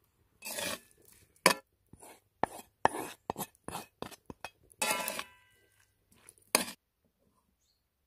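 Wooden spatula scraping scrambled egg out of a wooden bowl and tapping it against the bowl: a string of short scrapes and sharp knocks, the sharpest about one and a half and six and a half seconds in, then it stops.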